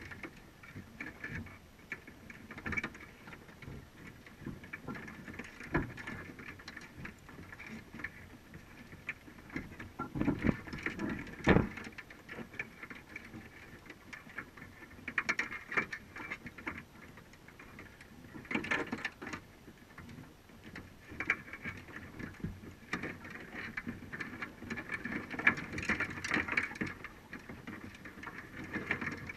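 Underwater crackling and irregular clicking heard through a GoPro's waterproof housing on a submerged crab trap, with a few louder knocks, the loudest about eleven and a half seconds in.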